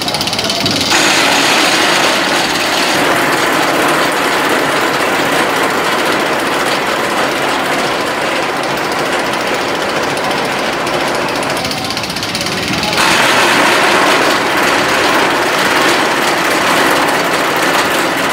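Wooden roller coaster's chain lift running, with its electric drive motor and gearbox: a dense, continuous mechanical clatter of chain and ratchet as a train is hauled up the lift hill, growing louder about thirteen seconds in.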